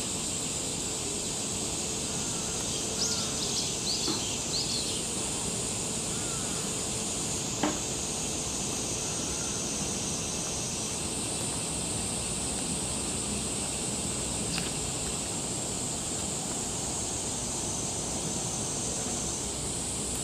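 Steady high-pitched drone of a summer cicada chorus. A few short high chirps come about three to five seconds in, and there is a single sharp click near eight seconds.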